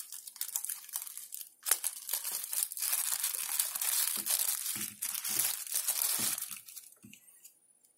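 Clear plastic wrapper crinkling and crackling as it is handled and pulled open by hand, dying away near the end.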